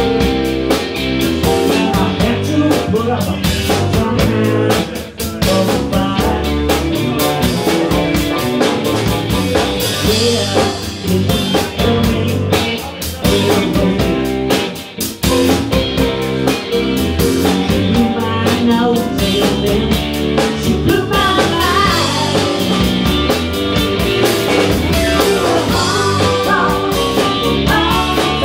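Live rock-and-roll band playing a honky-tonk style song: drum kit keeping a steady beat under electric guitar, with a woman singing into a microphone.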